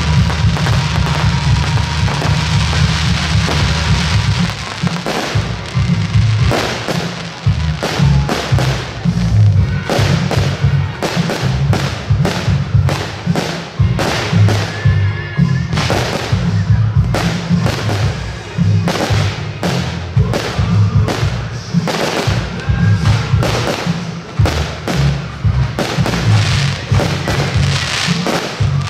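Fireworks display: aerial shells bursting with sharp bangs, coming in quick succession from about five seconds in, over music with a strong bass.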